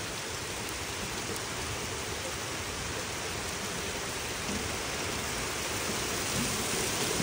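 Heavy rain pouring down steadily in a thunderstorm, an even hiss that grows slightly louder toward the end.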